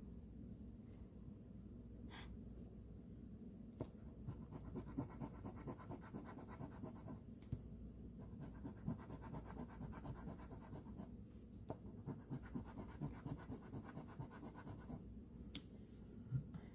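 Scratch-off lottery ticket being scratched with a coin or fingernail: fast, dense scraping strokes in three runs of a few seconds each, with short pauses between them.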